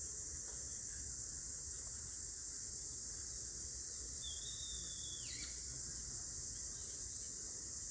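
Steady high-pitched hiss, with a single whistled note about halfway through that holds for about a second and then drops.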